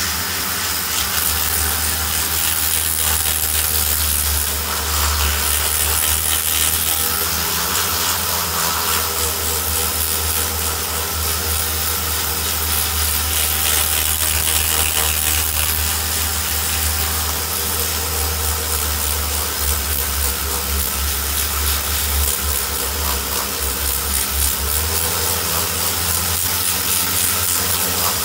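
Flexible-shaft rotary tool running steadily, its 80-grit abrasive tape on a felt mandrel grinding inside the port of a cast-iron classic Mini A-series cylinder head to blend the casting and grinding marks. A steady low motor hum under a continuous hissing scuff of abrasive on metal.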